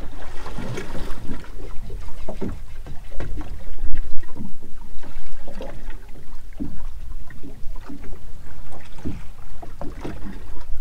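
Wind buffeting the microphone of a hat-mounted camera, with water slapping against the hull of a drifting boat; the gusts come and go unevenly and peak about four seconds in.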